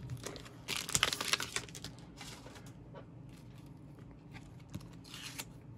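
Plastic card sleeves and tape crinkling and rustling as a stack of sleeved trading cards is handled. The sound comes in a few short bursts, the loudest about a second in.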